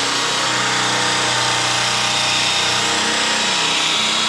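Electric polisher buffing sanded clear coat on the cab's paint: a steady motor whine at constant speed over the hiss of the pad on the paint.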